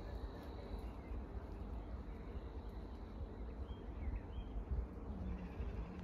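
Wind buffeting the microphone as a steady, uneven low rumble, with a few faint, short bird chirps about four seconds in.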